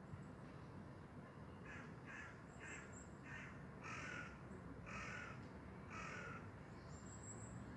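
A bird cawing: a run of about eight harsh calls over some five seconds, the later ones longer, with a thin high chirp near the end.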